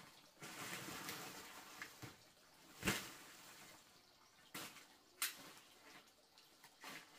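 Water swishing and splashing during household cleaning, with one sharp knock about three seconds in and a few lighter clacks later.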